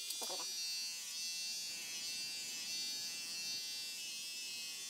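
Corded electric hair clippers running with a steady buzz while being passed over short hair to cut it down close to the scalp.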